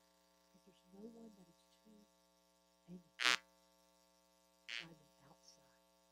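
Steady mains hum from the sound system, with faint murmurs about a second in and two short, sharp noises, the louder about three seconds in and a second one near the end.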